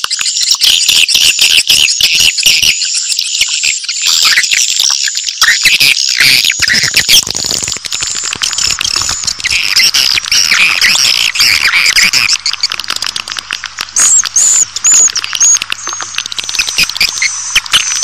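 Swiftlet lure recording of the 'suara inap' (roosting-sound) type, labelled as baby swiftlet calls: a dense, unbroken chatter of high chirps and clicks, the kind of call played to draw swiftlets in to roost. A faint steady low hum joins it about halfway through.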